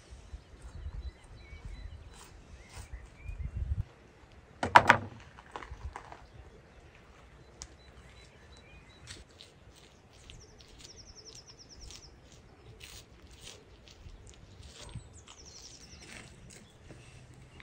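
Knife cutting and fingers peeling the membrane from a raw sheep liver on a wooden board: small wet clicks and handling sounds, with one brief loud knock about five seconds in. A songbird trills twice in the second half.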